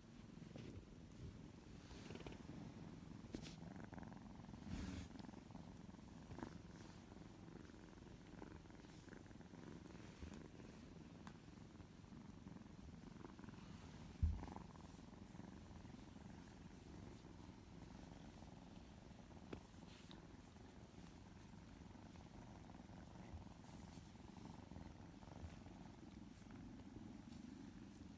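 A kitten purring close to the microphone, a quiet steady rumble, with a single soft thump about halfway through.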